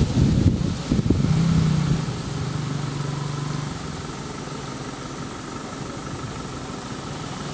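A vehicle's engine idling with a steady low hum, its note sitting a little higher for a couple of seconds before settling. Wind buffets the microphone loudly during the first second.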